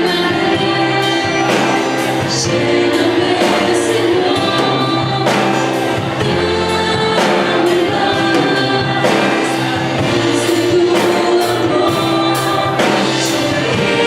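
Christian worship music with a group singing over a band and a steady drum beat.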